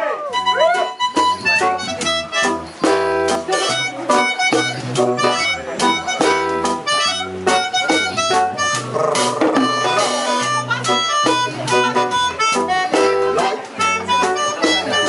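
Live reggae band playing: a melodica carries the held melody notes over a bass line, drum kit and acoustic guitar.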